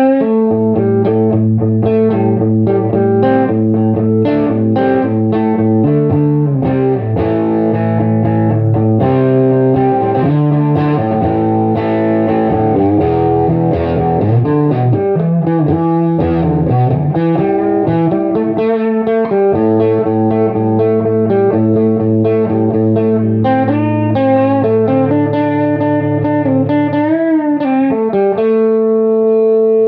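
Electric guitar played through a Bell 3723M PA head with its boost on and no pedals: heavily overdriven, fuzzy chords and riffs with added bass. A note bends and wavers a few seconds before the end, then is held.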